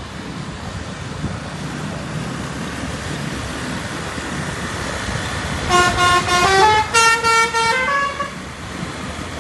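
A bus's musical 'telolet' (basuri) horn plays a short tune of stepped notes in two quick phrases about six seconds in, over steady road and engine noise.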